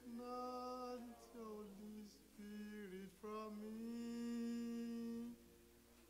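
A man's solo voice singing a slow worship melody into a handheld microphone, in a few long held notes with gentle slides between them. The singing stops about five seconds in.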